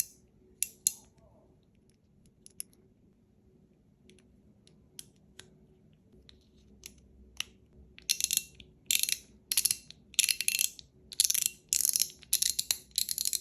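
Fidget slider being slid along its track, the spring-loaded marbles clicking over the track. A few single clicks at first, then from about eight seconds in a run of quick clicking strokes, about two a second.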